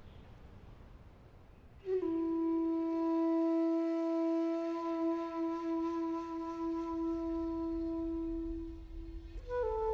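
Background score: a solo wind instrument enters about two seconds in and holds one long, low note, then steps up to a higher held note near the end.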